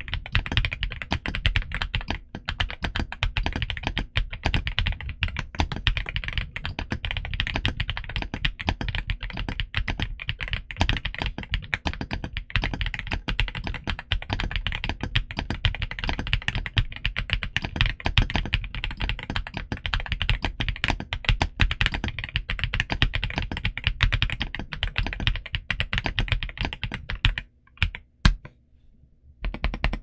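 Redragon K686 Pro SE mechanical keyboard with Outemu HiFi linear switches and dye-sub PBT OEM-profile keycaps being typed on quickly and continuously. Near the end the typing stops for about two seconds, with a few single key presses, then starts again.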